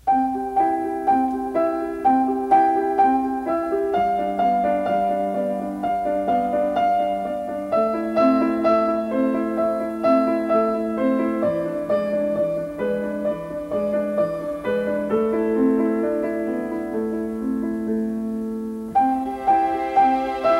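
Background music led by piano: a gentle, repeating pattern of struck notes, about two a second, over held lower notes. It grows brighter and busier near the end.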